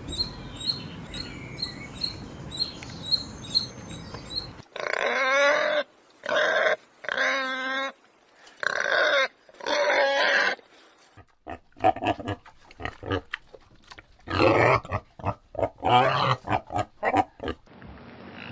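Pigs squealing and grunting: a run of loud pitched squeals, each half a second to a second long, then from about eleven seconds on quick short grunts mixed with more squeals. The first few seconds before the squeals are a steady hiss with faint, evenly spaced high ticks.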